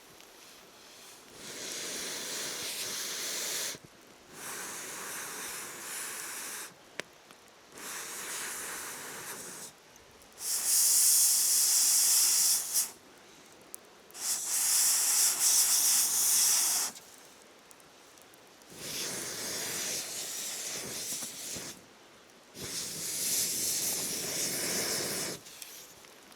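Seven bursts of hissing rush, each two to three seconds long, starting and stopping sharply with short pauses between; the fourth and fifth are the loudest and brightest.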